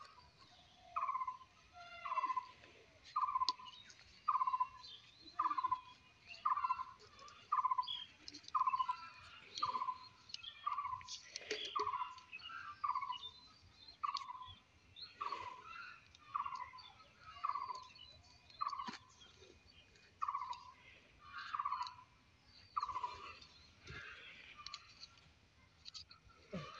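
A bird calling over and over, about once a second, each call a short note falling in pitch, with fainter chirps from other birds above it.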